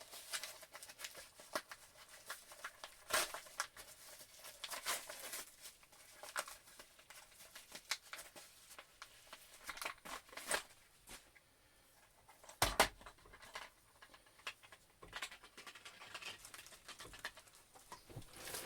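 Irregular crinkling, clicks and taps of a mailed package being handled and opened by hand, with one heavier knock about two-thirds of the way through.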